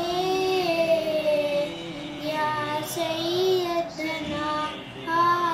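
A young girl singing a devotional Urdu manqabat unaccompanied, in long drawn-out phrases with short breaths between them.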